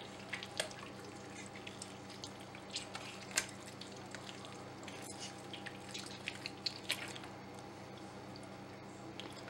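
Faint scattered wet clicks and drips from hands squeezing and pulling at a raw octopus in a stainless-steel sink while its beak and innards are taken out. A steady low hum sits underneath.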